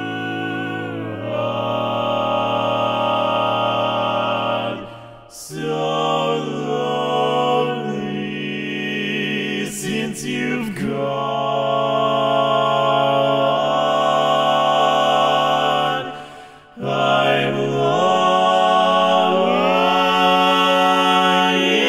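Unaccompanied four-part male close-harmony singing, all four parts sung by one man and layered together, holding slow sustained chords. There are two brief pauses between phrases, about five seconds in and again about sixteen seconds in.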